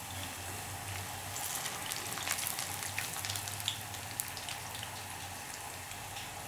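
Wheat parotta deep-frying in hot oil in an iron kadai: a steady sizzle with scattered crackles and pops.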